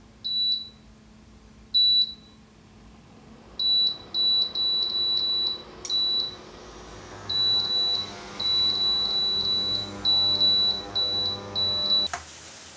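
Induction cooker's control panel beeping: short, loud, high-pitched beeps, two spaced apart and then a rapid string of them as buttons are pressed. About six seconds in, a click is followed by a low steady hum under the beeps, which cuts off with another click near the end.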